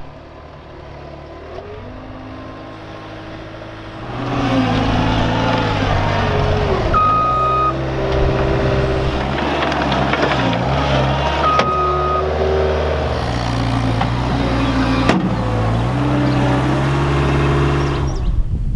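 Cat skid steer's diesel engine working, quiet at first and then loud from about four seconds in, its pitch rising and falling as the machine is worked. A brief high beep sounds twice partway through.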